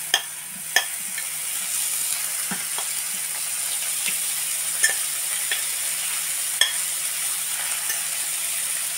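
Chicken pieces sizzling in hot oil in the cells of a nonstick multi-cell egg-and-pancake pan, a steady high hiss, with a few sharp clicks of a spoon against the pan and a glass lid.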